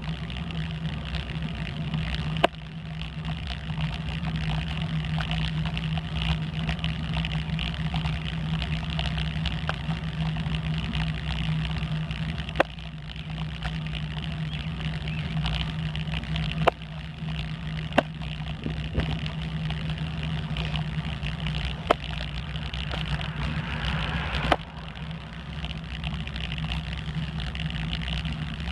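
A steady low drone, even in pitch and motor-like, runs under the ride. Sharp knocks break in every few seconds.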